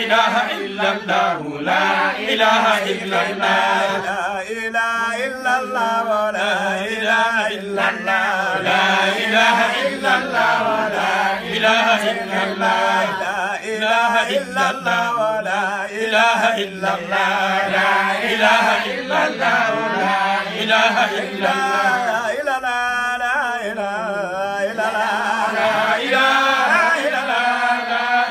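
A group of men chanting an Arabic Islamic devotional song (dhikr or qasida) together without instruments, with a steady low pitch held under the moving melody.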